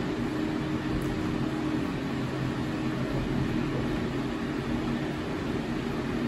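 Steady mechanical hum and whir, with a few low droning tones held unchanged throughout.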